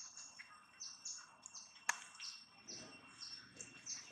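Bird chirping repeatedly: short, high calls that slide downward, about three a second, over a steady high-pitched tone. A single sharp click about two seconds in.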